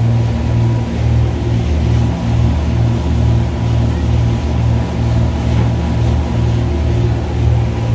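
The inboard engines of a 1982 Bertram powerboat running under way at speed: a steady low drone that throbs about twice a second, over the rush of water from the wake.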